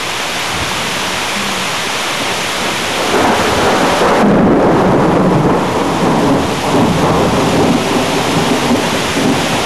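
Heavy thunderstorm rain falling steadily, with a long roll of thunder that builds about three seconds in, is loudest just after the middle, and keeps rumbling as it fades.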